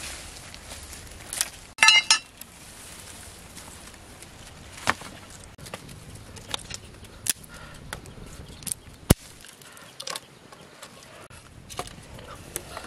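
Dry twigs and sticks snapping and clicking as they are handled and laid on a small wood fire between stones, with a loud ringing clink about two seconds in and a sharp crack about nine seconds in.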